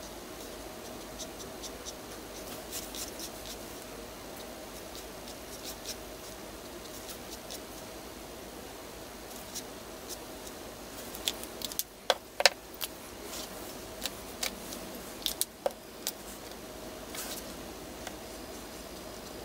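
Faint scratching of a felt brush-tip marker on paper over a steady hum, with a cluster of sharp clicks and taps about eleven to sixteen seconds in.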